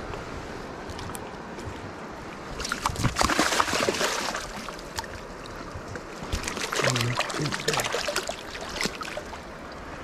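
Steady rush of river current at the bank, with two bursts of splashing about three and seven seconds in as a landing net and a sockeye salmon are moved through the shallow water.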